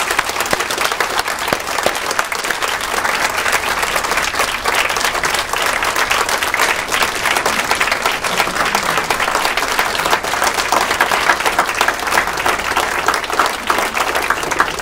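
Audience applauding: many people clapping steadily and densely, dying away at the very end.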